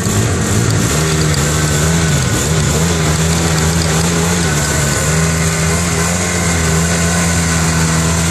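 ATV engine held at high revs, with its wheels spinning and digging in mud as it tries to climb out of a creek up a steep bank. The revs climb about a second in and ease off briefly twice.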